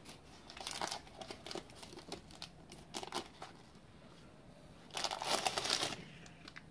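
Masking tape being picked and peeled off a freshly painted speedometer housing, crinkling and crackling in short pulls, with a longer stretch of crinkling about five seconds in.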